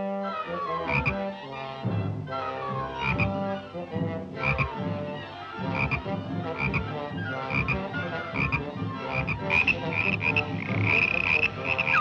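Cartoon orchestral score in short, punctuated phrases, with sliding runs of notes and accented hits, and a wobbling falling glide at the very end.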